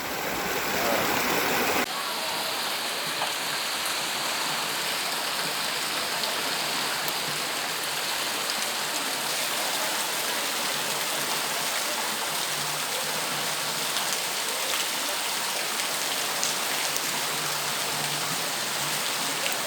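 Heavy rain falling steadily, a dense, even hiss. The sound changes abruptly about two seconds in.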